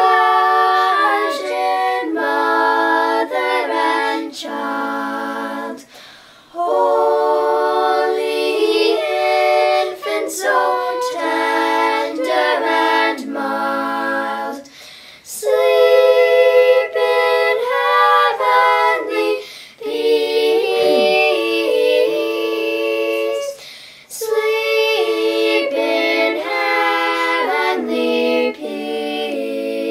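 Several voices singing a cappella in harmony, women's voices leading, in sung phrases with brief pauses between them.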